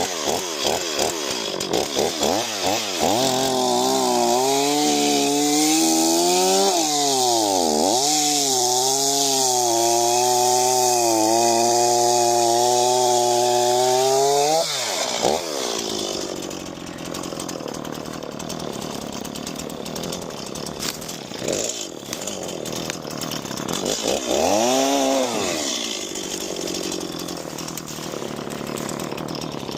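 Two-stroke chainsaw starting and running at high revs, its pitch dipping and recovering once. About halfway through the high note stops and the sound turns quieter and rougher, with one brief rev near the end.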